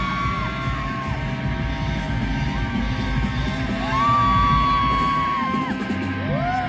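Live rock band playing: long held high notes that bend up into each note and fall away at its end, over a dense low backing of bass and drums, with crowd yelling and whooping.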